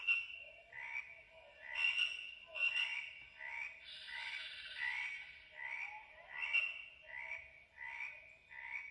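Recorded tree frog chorus played through the small speaker of an Usborne Zoo Sounds board book, set off by pressing its sound button. It is a steady run of repeated croaks, about three every two seconds.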